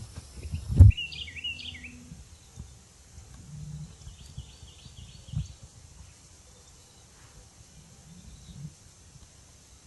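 Small birds chirping in short quick runs of calls, with a sharp thump about a second in that is the loudest sound, over low rustling.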